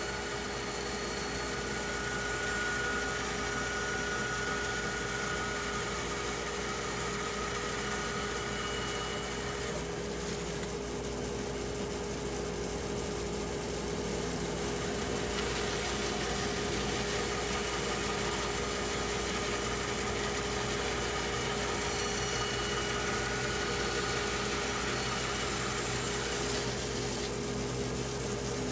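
A motor or engine running steadily at an even pace, with a constant hum.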